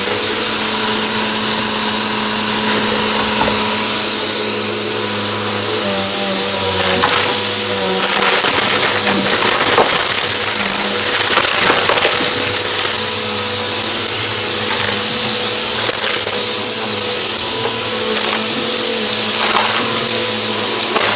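Vacuum cleaner running steadily with a loud airflow hiss and motor hum, crackling now and then as crunchy debris is sucked up.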